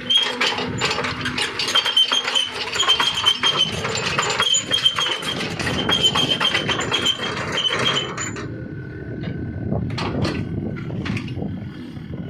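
Mini excavator moving, its tracks clanking with a steady high squeal over the running engine. The clatter stops about eight seconds in, leaving the engine running with a few separate knocks.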